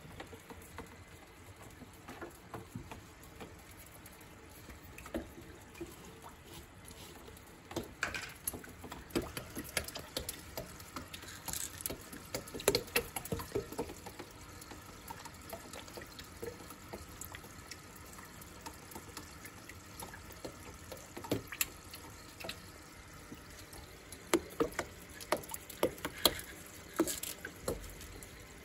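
Water trickling and bubbling in a small turtle tank from its filter, with scattered small splashes and taps in two clusters, one about a third of the way in and one near the end.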